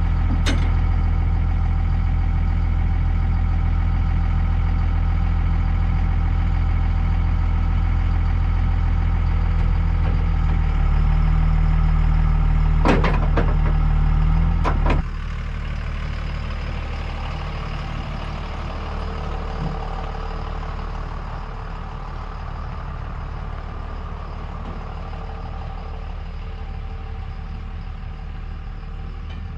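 A heavy machine's engine idling steadily, picking up a little about eleven seconds in, then dropping to a quieter, lower idle about four seconds later, with a few sharp clicks or knocks along the way.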